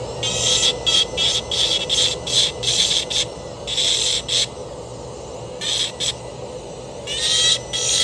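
Dental lab micromotor handpiece with a carbide bur grinding a cast metal implant bar framework in short strokes. It makes a quick run of scratchy grinding bursts, pauses around the middle, then grinds again near the end, over a steady low hum.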